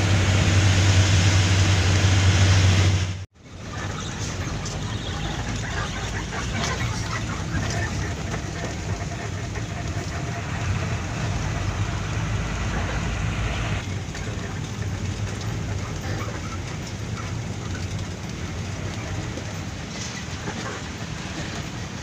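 Diesel dump truck driving, heard from inside its cab: a loud, steady engine drone with a deep hum for the first three seconds, then after an abrupt cut the engine rumble and cab rattle of the truck travelling a rough dirt road, a little quieter in the last third.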